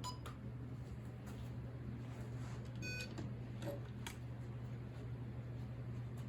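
Steady low electrical hum, with a short electronic beep about three seconds in and a few faint clicks.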